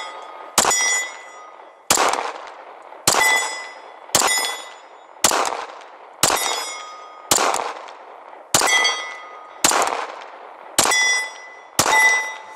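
Eleven shots from a Glock 23 .40 S&W pistol, fired at a steady pace of about one a second, the pistol cycling every time with snow packed into its slide. Each shot is followed by a ringing metallic tone, as of a steel target being hit.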